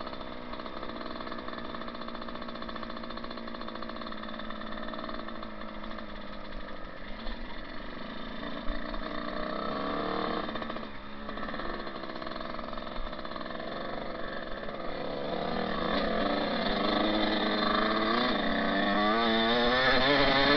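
Dirt bike engine running at low throttle, then revving up and down and growing louder over the last few seconds as the bike accelerates along the trail.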